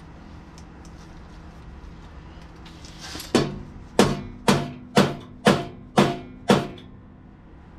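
Seven sharp mallet blows, about two a second, each ringing briefly, knocking a Harley tour-pack mounting rack into place over the rear fender. A few light clicks come before them.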